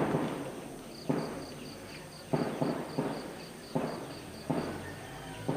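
An irregular series of dull thumps, about seven in five seconds, each dying away quickly, over a faint high chirping repeated about four times a second through the middle.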